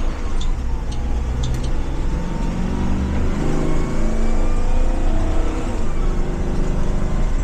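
School bus's Ford 7.3-litre V8 engine running under load, heard from the driver's seat. Its pitch climbs for a couple of seconds about halfway through as it revs up. A few light rattles or clicks come near the start.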